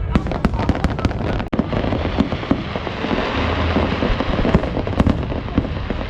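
Aerial fireworks going off: a quick run of sharp bangs, turning about a second and a half in into dense, continuous crackling with a few louder bangs in it.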